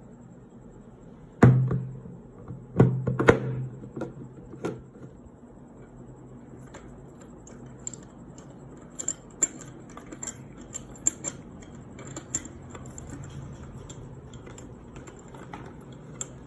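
Parts of a metal industrial fan being handled, with a few loud knocks about one and a half to three seconds in, then a run of lighter clicks and taps.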